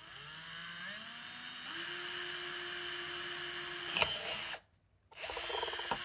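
Cordless drill drilling a hole through the center of a plate. Its motor whine rises in pitch over the first two seconds and then holds steady, with a sharp click about four seconds in. It stops briefly soon after and starts again near the end.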